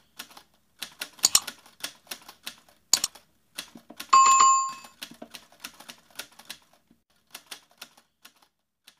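Keyboard typing sound effects, a rapid run of short clicks, with two louder clicks and a bright bell ding about four seconds in that rings for under a second.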